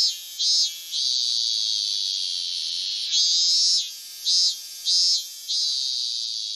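A shrill, high-pitched ringing sound effect in a repeating pattern: a few short pulses, then a long held tone that slowly fades. The pattern comes twice.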